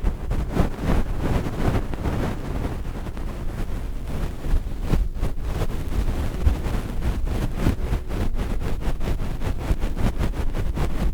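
Ear-cleaning strokes rubbing and scratching right against a binaural microphone's ear, a dense run of short strokes that come faster from about the middle on.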